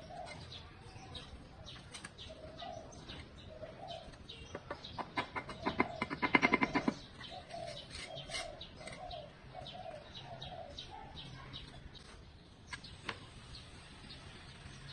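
A mason's trowel tapping and scraping on hollow clay bricks and wet mortar, with a loud rapid run of taps about six seconds in as a brick is knocked down into its bed. Birds call in short repeated notes in the background.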